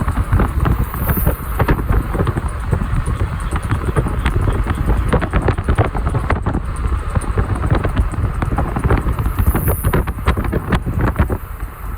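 Vehicle on the move, a steady low rumble with wind noise, with many irregular sharp clicks and knocks throughout: the abnormal noise coming from the vehicle's left side.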